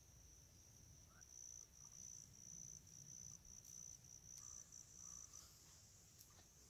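An insect trills faintly: a high, pulsing, steady trill that cuts off about five seconds in. A few faint clicks follow near the end as someone walks in through the undergrowth.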